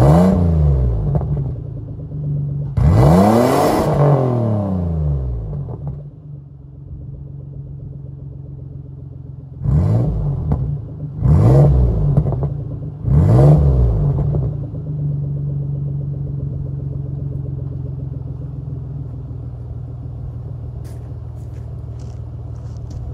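Isuzu Trooper's 3.5-litre V6 heard at the tailpipe, idling and being revved. A rev dies away at the start, a longer rev rises and falls a few seconds in, then three short blips come about two seconds apart around the middle before it settles to a steady idle.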